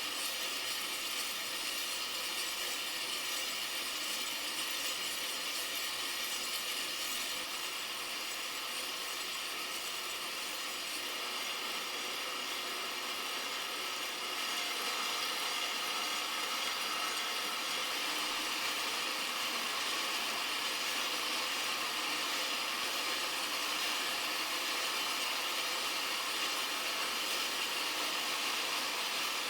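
Sound sculpture of about 2000 small DC motors spinning metal discs on MDF panels: a dense, steady, rain-like hiss of countless tiny metallic rattles, a little louder from about halfway.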